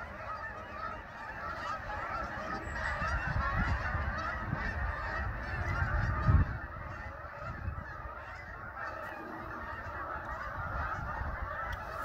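A large flock of geese flying overhead, many birds honking at once in a continuous, overlapping chorus. A low rumble sits underneath, loudest about six seconds in.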